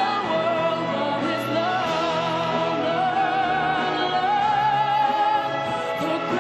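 A solo singer holding long, wavering notes with vibrato over a full instrumental accompaniment.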